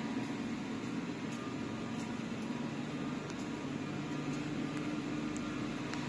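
Machinery of a PET bottle flake washing line running: a steady hum with the rushing air of a centrifugal blower, and a few faint ticks.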